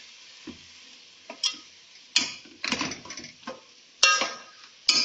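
Metal spoon scraping and knocking against a metal pot while stirring minced meat and tomatoes as they fry. The strokes are short and irregular, loudest about two, four and five seconds in.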